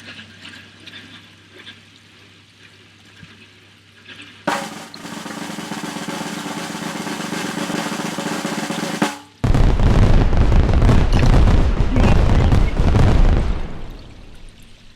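Electric winch on a Jeep running steadily for about four and a half seconds, paying out its line, then stopping abruptly. This is followed by a loud, rough rattling rumble lasting about four seconds, which then fades.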